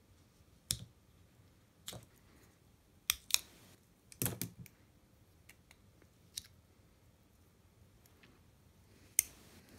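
Scattered sharp clicks and snaps of pliers working at a small speaker driver, prying its cone membrane off the frame; the loudest come near the middle and near the end.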